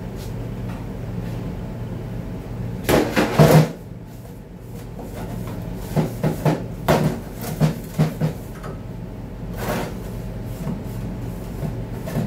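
Clattering knocks of a sheet-metal transmission oil pan being handled and set down on the workbench as it is wiped clean: a loud cluster of knocks about three seconds in, then a run of lighter knocks around six to eight seconds and one more near ten seconds.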